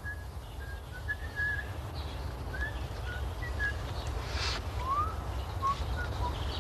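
A man whistling softly: short, scattered single notes, a few of them sliding upward, over a steady low outdoor rumble.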